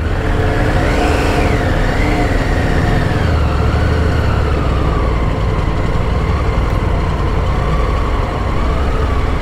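Laden touring motorcycle's engine pulling away from a standstill at walking pace, its note rising briefly about a second in and then settling into a steady low-speed run.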